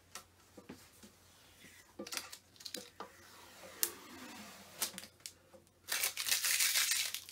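Clear protective plastic film being peeled off a slow cooker's outer casing: scattered crinkles and small ticks, then a louder continuous ripping peel starting about six seconds in.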